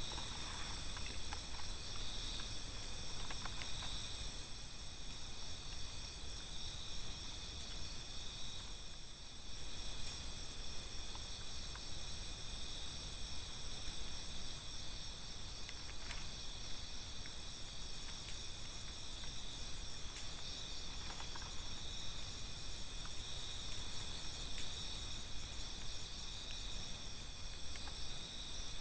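Chorus of night insects: several steady, high-pitched trills at different pitches running together without a break, with a few faint scattered clicks.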